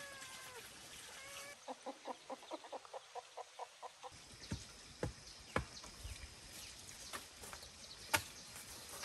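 Bird or poultry calls: short chirps, then a rapid even run of about a dozen pitched notes, followed by several scattered sharp knocks.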